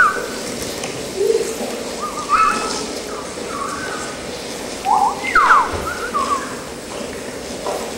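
People whistling: several short whistles that slide up and down in pitch, the loudest a pair of swooping whistles about five to six seconds in.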